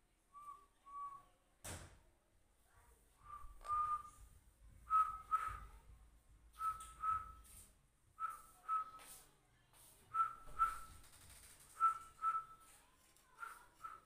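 Short whistled notes in pairs, each pair a quick two-note phrase at the same pitch, repeated about every one and a half to two seconds. A single sharp knock about two seconds in.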